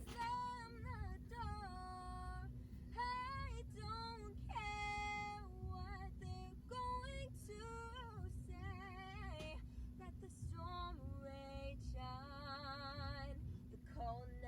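A female voice singing solo, phrase after phrase of a slow melody, with held notes and a wavering vibrato near the end, over a steady low hum.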